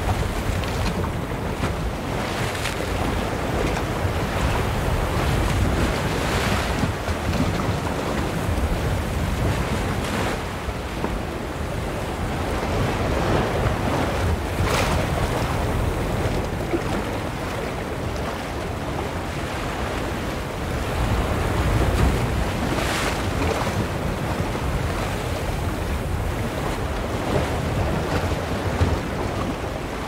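Ocean waves splashing in a continuous rush of surf, with a few brighter splashes about every eight seconds.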